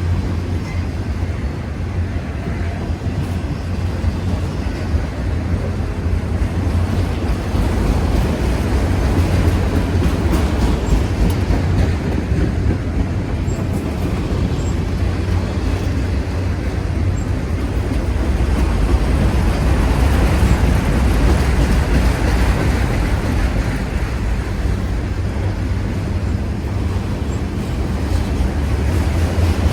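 Freight train of empty autorack cars rolling past, a steady loud rumble of wheels on rail.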